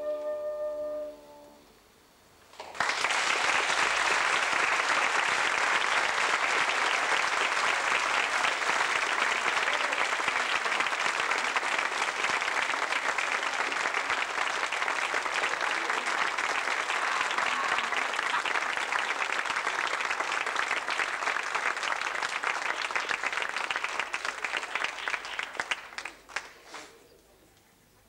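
Concert audience applauding: a piece of music fades out in the first second, and after a brief hush the applause starts sharply, holds steady for about twenty seconds, then thins to a few last claps and stops.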